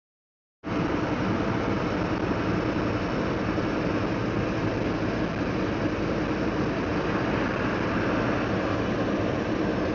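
Steady road and engine noise of a moving car heard from inside the cabin, with a low hum, cutting in abruptly under a second in.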